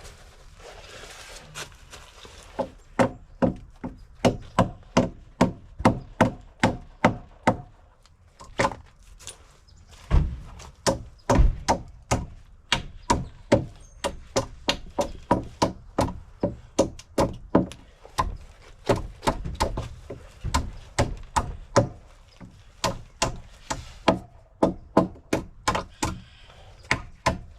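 Hammer striking wooden deck boards over and over, about two or three blows a second, in runs with short pauses, as old boards are knocked loose during demolition.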